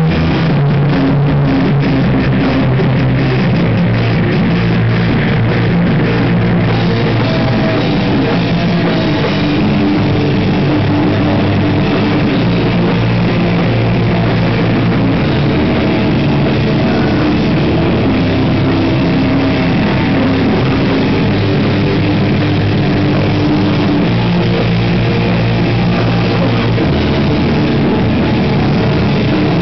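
Live rock band playing loud with electric guitar, bass and drum kit. It opens with a fast run of drum hits for the first several seconds, then settles into steady chords over the drums.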